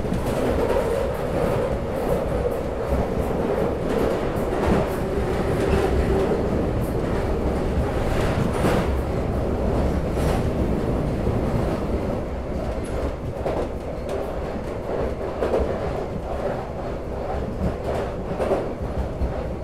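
Subway train running: a steady rumble with occasional clicks of wheels over rail joints, and a droning tone that fades after about six seconds.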